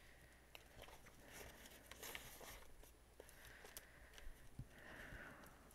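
Faint rustling of paper banknotes and clear plastic binder pouches being handled, with a few soft clicks and short swishes.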